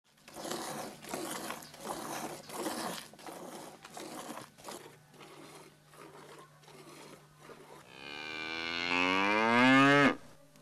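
Milk squirting into a metal bucket as a cow is hand-milked, a quick rhythmic run of squirts that grows fainter. Near the end a cow gives one long, loud moo, rising in pitch and cut off abruptly.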